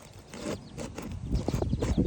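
Irregular knocks and taps of roofing hand tools working on roof shingles to loosen them and get at the nails, getting louder in the second half.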